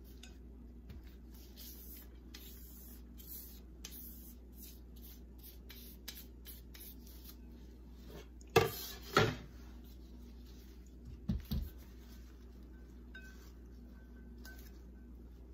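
Shredded cabbage and carrot slaw rustling as gloved hands toss it in a bowl, with a few loud knocks of a plate against the bowl a little past halfway.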